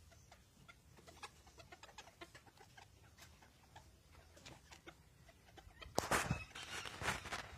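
Rosecomb bantam chickens clucking in short, soft calls, with a louder, harsher burst of calling about six seconds in.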